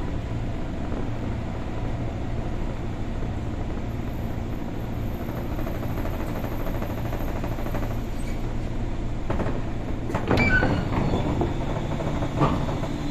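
Interior of a stopped ex-JR 203-series electric train car: the steady low hum of the car's onboard equipment, then about ten seconds in the passenger doors slide open with a short loud clatter, followed by a single knock.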